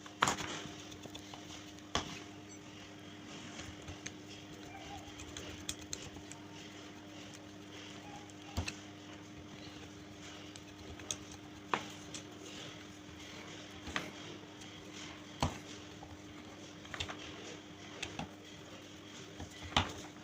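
Scattered sharp clicks and knocks of metal tools and parts being handled, every one to three seconds, over a steady low hum.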